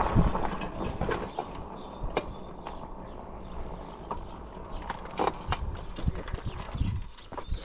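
Bicycle rolling slowly over interlocking paving stones: a low rumble of tyres with scattered clicks and light knocks as it crosses the joints. A brief high chirp about six seconds in.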